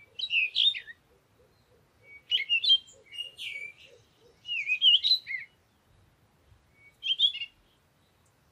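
A songbird singing several short, quick warbling phrases of chirps and whistles, with pauses of about a second between them.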